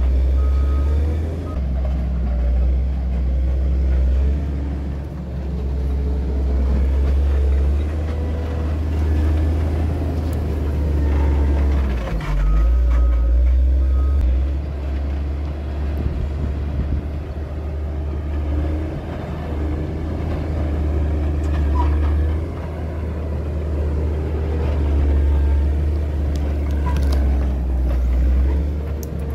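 Caterpillar 140M motor grader's diesel engine running steadily as the machine works the dirt road. Its reversing alarm beeps in short spells near the start and again about halfway, where the engine note briefly drops.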